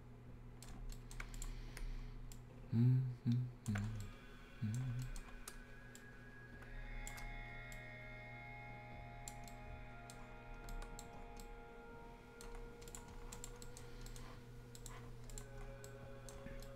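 Computer mouse clicks and keystrokes, scattered and irregular, during work in 3D modeling software. A few short low hums sound about three to five seconds in.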